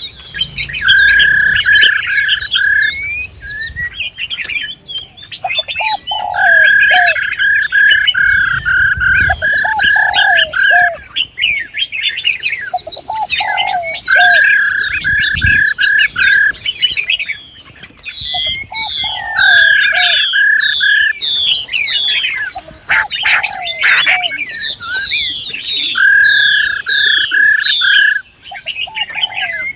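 Several songbirds calling together: dense, rapid high chirps and trills, over a warbling phrase with a held note that comes back every five or six seconds.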